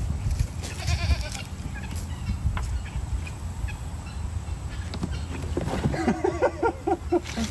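Goats bleating, with poultry calling among them. A run of short calls starts about five and a half seconds in, over a steady low rumble.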